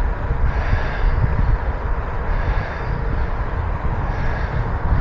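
Steady low rumble of wind buffeting the microphone and road noise from riding a bicycle along a road.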